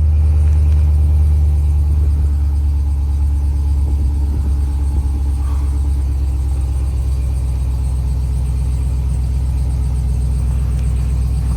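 A pickup truck's engine idling steadily, a low, even hum.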